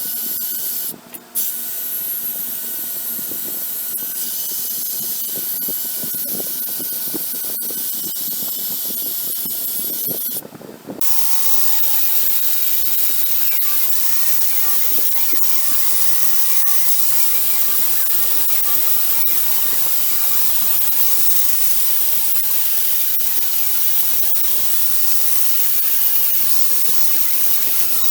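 A power tool running steadily on the metal vise during cleanup, a loud hissing grind. It cuts out briefly about a second in and again about ten seconds in, and sounds coarser and fuller after the second break.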